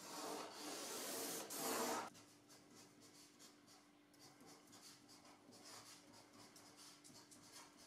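Ballpoint pen drawn along a ruler across brown pattern paper in one long scratching stroke lasting about two seconds, followed by fainter short scratches of the pen writing letters on the paper.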